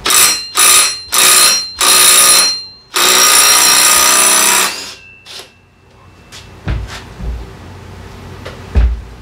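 Impact wrench hammering in five loud bursts, the last and longest lasting nearly two seconds, as it works a nut loose on the scooter's drive pulley. A few dull knocks follow near the end.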